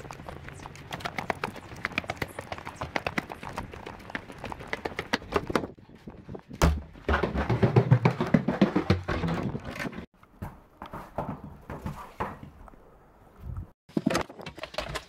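Footsteps of plastic clogs on paving slabs at a walking pace. About six and a half seconds in comes a thump, then several seconds of louder knocking and rustling, and near the end a few clicks from a wooden door's latch.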